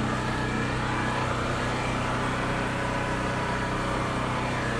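A small engine running steadily at an even idle, a low hum that holds one pitch.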